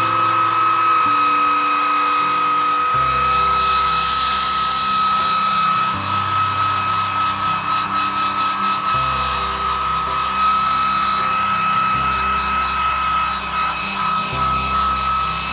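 Hand-held hair dryer running steadily with a constant high whine, over background music with low notes changing every couple of seconds.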